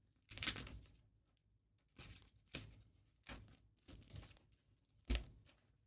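Faint handling and rummaging of craft supplies: a handful of short rustles and light knocks spread out over a few seconds, with a slightly louder knock about five seconds in.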